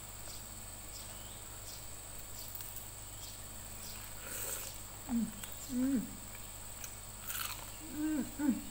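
A person biting into fried chicken, with a crunching bite about four and a half seconds in and another near seven and a half. Between the bites and near the end come short closed-mouth hums, two at a time, of someone eating.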